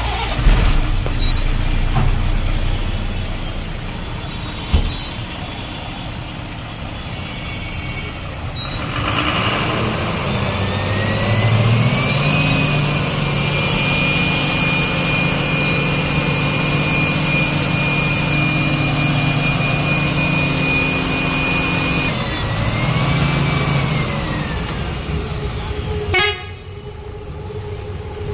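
Heavy road vehicle running, with a high whine that rises, holds steady for about ten seconds, then dips and falls away over a low engine hum. The sound cuts off abruptly near the end.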